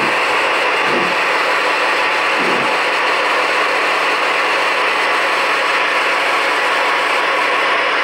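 Gauge 1 live-steam model steam locomotive hissing steadily as steam blows out around its cylinders.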